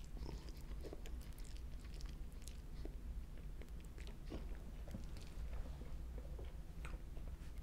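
A person chewing a mouthful of spicy ramen noodles: faint, irregular wet mouth clicks over a low steady hum.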